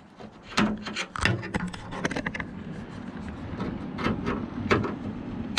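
A truck tailgate latch part being worked loose by hand: a series of sharp clicks and knocks with rubbing and scraping between them, the loudest knock at the very end.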